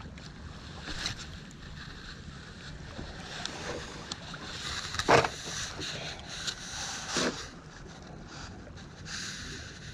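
Steady wind noise on the microphone and water lapping around a small boat on open sea, broken by a few sharp clicks and knocks. The loudest knock comes about five seconds in, and another just after seven.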